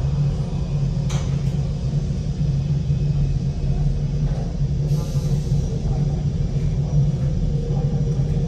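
Steady low rumble with a deep hum, like an idling engine or a starship's engine ambience, with a short click about a second in.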